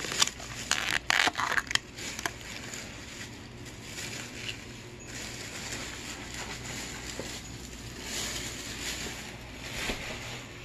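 Thin plastic takeout food lids being handled and pulled off, with crackles and sharp clicks that are loudest in the first two seconds and give way to a soft hiss.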